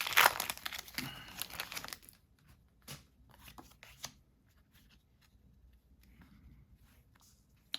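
Pokémon booster pack's foil wrapper being torn open and crinkled for about the first two seconds. Then come faint, scattered soft clicks and rustles as the cards are slid out and handled.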